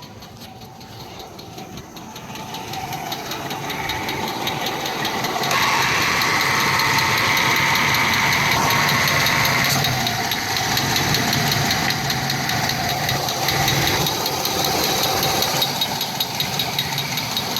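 An engine running with a rapid, even knocking, which the title names as engine knock. It grows louder over the first few seconds, then holds steady.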